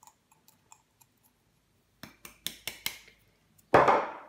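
Light clicks and clinks of a ceramic mug against a mixing bowl and the tabletop as powdered sugar is tipped in and the mug set down, with a quick cluster of sharp taps about two seconds in. A brief louder noise comes near the end.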